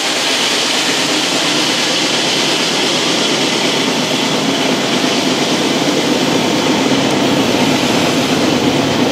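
Autorack freight cars of a passing train rolling by close at hand: a loud, steady rumble and rattle of steel wheels on the rails.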